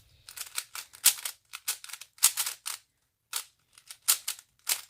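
Plastic speed cube being turned by hand: quick, irregular clacking of the layers in bursts of several turns, with short pauses between.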